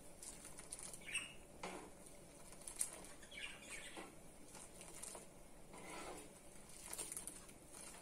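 Thin horse gram rasam ladled up with a steel ladle and poured back into a boiling pan: faint splashes and dribbles of liquid about once a second, with a few sharper taps of the ladle.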